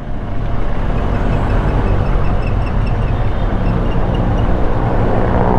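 Benelli TRK 502X parallel-twin motorcycle engine running steadily while riding in city traffic, with wind and road noise on the helmet microphone. A faint high pipping repeats through most of it.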